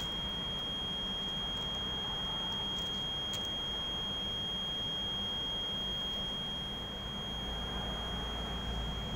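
A steady high-pitched tone, unchanging in pitch, over a constant hiss and low hum.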